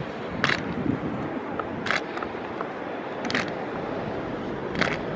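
Rugby players slapping in unison, four sharp cracks evenly spaced about a second and a half apart, over a steady rush of wind noise.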